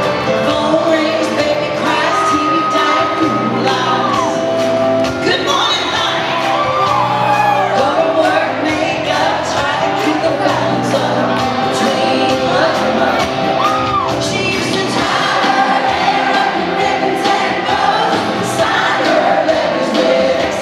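Live country band with a singing voice, heard in a large, echoing arena, with whoops and cheers from the crowd over the music.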